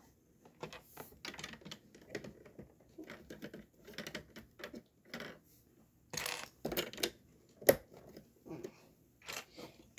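Plastic Lego pieces clicking and rattling as they are handled and pressed together: a string of small irregular clicks, with one sharp snap about three-quarters of the way through.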